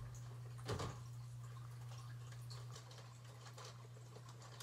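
Faint rummaging through fishing tackle on a shelf across a small room, with a light knock about a second in, over a steady low hum.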